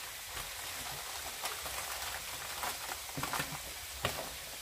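Ham slices sizzling softly in melted butter and olive oil in a frying pan: a steady light hiss with a few small pops and crackles.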